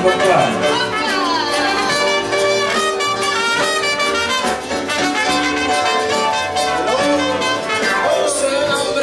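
Band music with brass horns carrying a jazzy tune over bass and keyboard.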